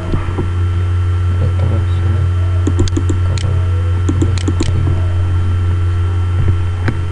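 Steady low electrical hum from the recording setup, with a faint high whine. Partway through comes a scatter of sharp computer clicks, from mouse and keyboard, as lines are picked in the drawing program.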